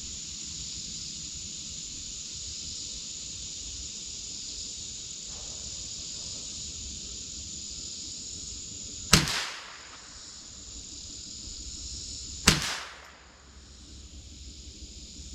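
Two shots from a scoped Marlin Model 60 .22 semi-automatic rifle, each a sharp crack with a short echoing tail, fired about three and a half seconds apart in the second half. A steady high insect buzz runs underneath.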